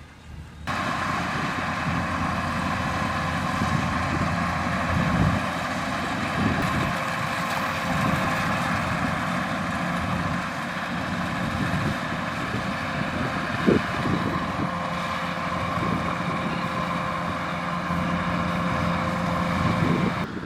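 Kubota DC-105X rice combine harvester running steadily while harvesting, with a steady high whine over the engine. It cuts in abruptly just under a second in.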